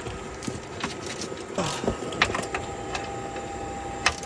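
Hand-tool work under a car: scattered metallic clicks and knocks of wrenches and loosened parts, with no steady rhythm and a short squeak about halfway through.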